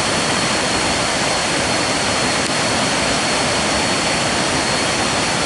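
Waterfall rushing: a loud, steady wash of muddy water falling onto rocks.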